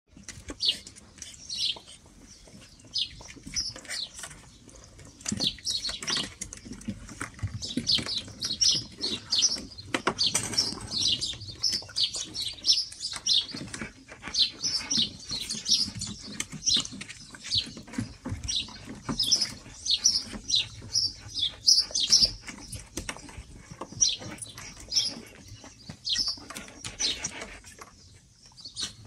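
White Swiss Shepherd puppies scrambling around and into a plastic paddling pool, their paws pattering and scraping on the plastic and floor. Many short high chirps sound over it, thickest in the middle and thinning out near the end.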